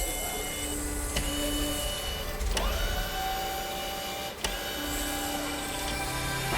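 A small mechanism whirring in short steady tones, with three sharp clicks spaced about a second and a half apart.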